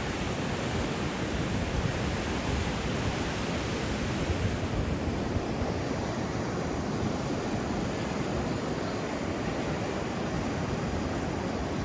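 Ocean surf washing on a beach, a steady rushing noise with no distinct breaks.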